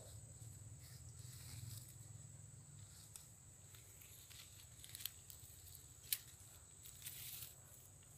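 Near silence with faint rustling of dry leaves and twigs and a few light clicks as a snare is handled and someone moves through the undergrowth.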